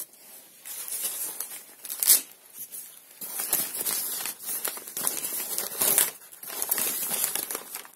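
Grey packing paper crinkling and rustling as a potted orchid is unwrapped and handled among it, with louder crackles about two seconds in and again near six seconds.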